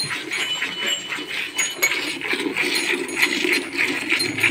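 Hand milking: jets of milk squirted in quick alternating spurts into a steel bucket, hissing and splashing into the frothy milk already in the pail.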